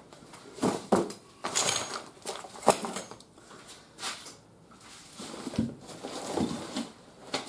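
Lightweight aluminium tent poles clinking and knocking as they are gathered up off a table, with rustling of bag material and scattered handling knocks.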